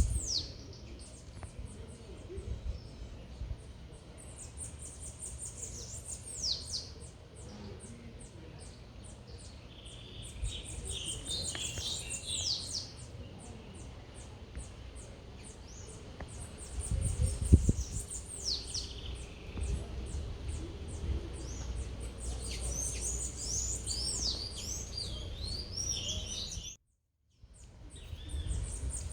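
Small birds chirping in quick, falling notes, in bursts throughout, over a steady low rumble of city noise. A dull thump comes about 17 seconds in, and the sound cuts out completely for about half a second near the end.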